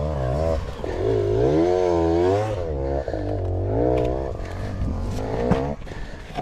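Enduro motorcycle engine revving up and down repeatedly, its pitch rising and falling in waves, then stopping near the end.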